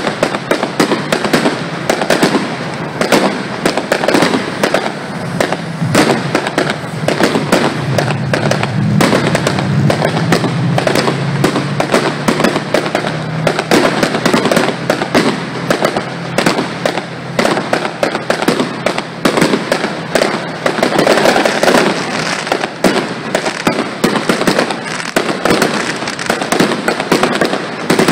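Fireworks display: a dense, continuous barrage of bangs and crackle, many reports a second, heavier and more rumbling about ten seconds in.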